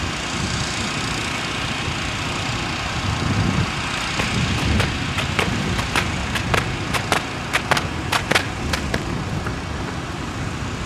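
Running shoes striking a rubberised running track in a quick, even rhythm of about three strikes a second: two runners doing the B's drill, pawing each foot down to the ground. The strikes start about four seconds in and stop about nine seconds in, over a steady background rumble and hiss.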